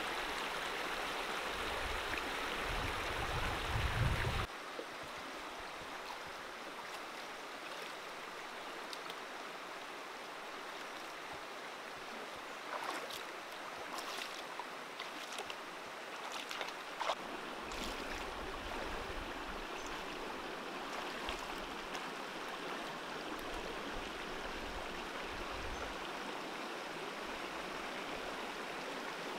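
Shallow rocky stream flowing steadily. About halfway through, a short run of splashes and knocks as bare feet wade through the water among the rocks.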